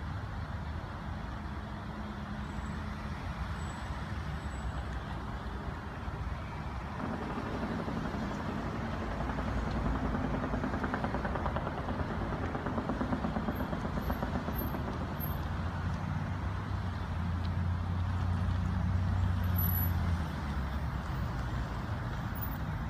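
Cars creeping past in a slow line of traffic, a steady hum of engines and tyres. The hum swells in the middle as the nearest cars pass and is loudest shortly before the end, then drops back.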